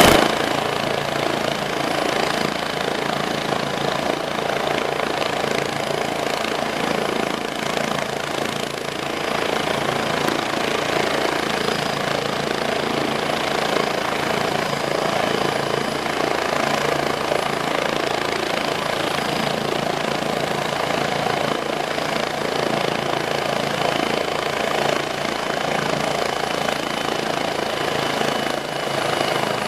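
Turbine helicopter running steadily, a constant rush of engine and rotor noise with a thin, high turbine whine over it.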